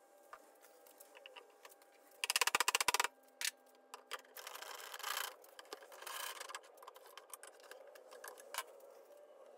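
Hands working a hardwood tabletop glue-up on a bench: a rapid rattle of clicks about two seconds in, then wood scraping across the bench twice, and a single sharp click near the end.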